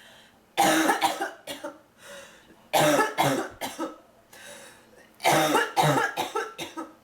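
A woman coughing in three fits, about two seconds apart, each a run of several quick coughs, a chesty cough she puts down to bronchitis.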